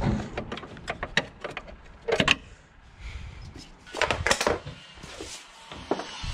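Hand tools and gear being handled and set down in a car repair setting: a run of light clicks and knocks, with louder clattering knocks about two seconds and four seconds in.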